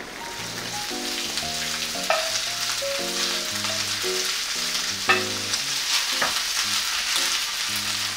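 Kimchi fried rice sizzling on a hot griddle pan, with a spatula scraping and knocking against the pan in a few sharp clicks.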